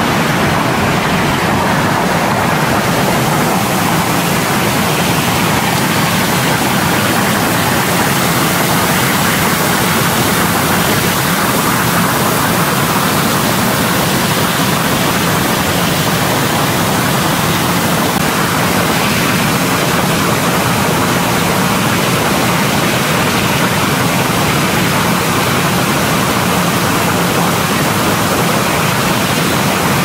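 Bubble-type fruit and vegetable washer running: a steady, even rush of churning, spraying water with a low hum underneath.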